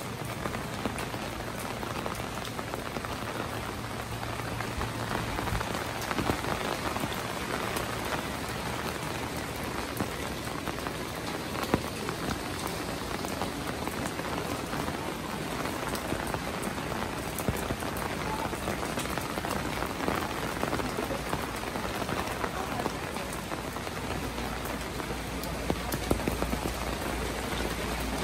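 Steady rain falling: an even hiss with scattered sharper drop clicks, one louder click about twelve seconds in.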